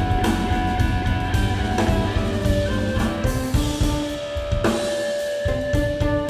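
Live instrumental trio of electric guitar, electric bass and drum kit playing a groove. About halfway in the guitar holds one long note, and the low end drops out for about a second before the bass and drums come back in.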